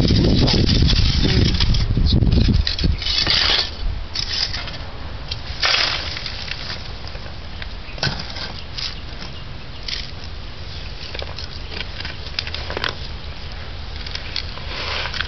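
Pieces of freshly made charcoal clinking and crunching as they are handled inside the kiln, loudest in the first two and a half seconds. After that come scattered scrapes and knocks of bricks and sand being moved by hand.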